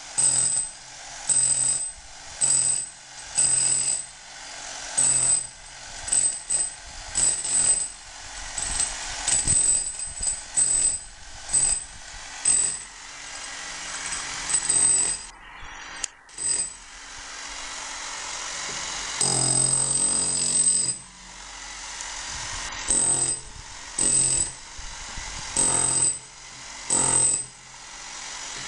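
Electric rotary hammer with a chisel bit chipping plaster off a masonry wall, running in short bursts about once a second. About two-thirds of the way through it runs unbroken for a couple of seconds.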